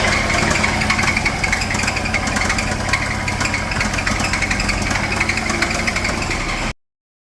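BMW N63 4.4-litre twin-turbo V8 idling with a fast, irregular ticking rattle over the steady engine note, the bad noise that the title blames on a dirty VANOS. The sound cuts off suddenly near the end.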